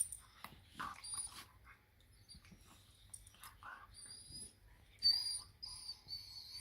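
Two dogs playing over a toy: scattered scuffles and knocks with short dog sounds, and a high thin squeak held for about the last second and a half.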